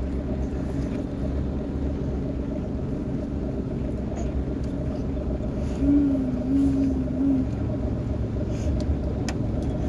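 A motor running steadily with a low, even drone. A short wavering pitched sound comes through about six seconds in.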